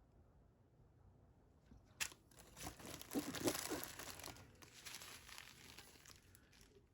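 Small plastic bags of diamond-painting drills crinkling as they are picked up and handled. It starts with a sharp click about two seconds in, and the rustling then fades out.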